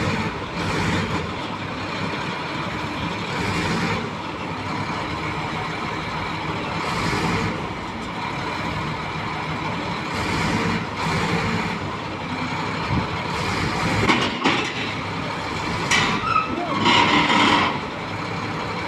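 Heavy diesel engine of a bulldozer running steadily, with rougher higher-pitched bursts of noise every few seconds, loudest near the end.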